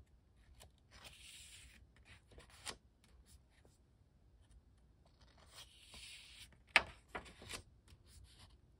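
Paper pages of a small sketchbook being turned by hand. There are two soft rustles, about a second in and again about five and a half seconds in, with light paper ticks around them and one sharp snap of paper about seven seconds in.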